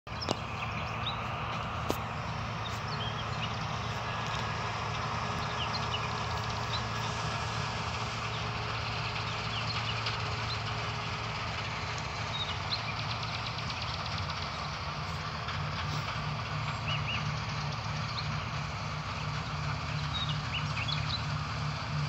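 Combine harvester engine running steadily with a low hum, with birds chirping briefly and often over it.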